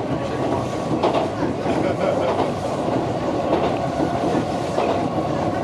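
Keihan electric train running over a steel truss bridge, heard from inside the driver's cab: a steady rumble of wheels on rail, with a few clacks as the wheels pass over rail joints.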